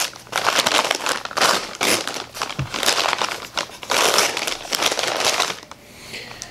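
A brown paper shipping bag crinkling and rustling as it is opened by hand, in a run of irregular crackly bursts that die down near the end.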